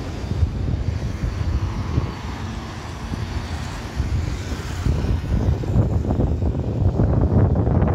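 Distant rumble of a Boeing 737-800's jet engines, steady, mixed with wind buffeting the microphone; the gusts get heavier about halfway through.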